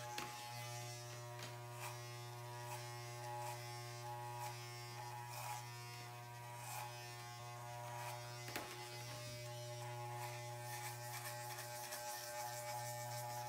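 Corded Wahl electric hair clippers running with a steady low buzz while being run through hair, with faint irregular crackles as the blade cuts.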